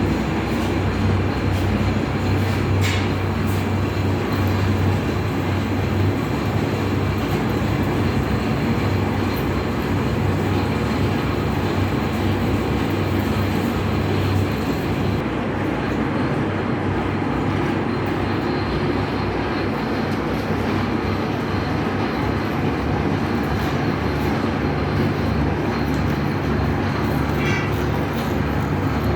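Metal lathe running: a steady mechanical rumble with a low motor hum that changes pitch about halfway through.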